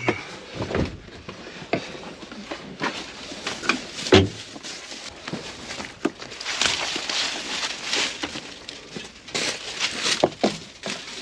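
Rustling and scattered knocks of someone moving around a side-by-side in dry corn-stalk stubble, with one louder thump about four seconds in.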